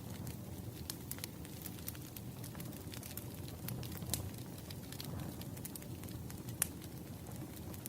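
Firewood burning, crackling with scattered sharp pops and snaps over a steady low rumble, one pop louder than the rest about two-thirds of the way in.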